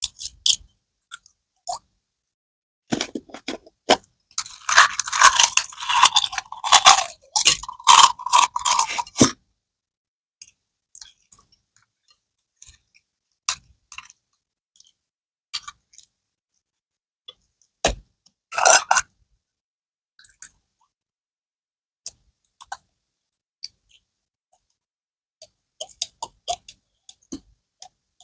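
Slime being squished and poked: a dense run of crackling, popping clicks from about three to nine seconds in, then scattered single clicks and pops with a short crackling cluster midway.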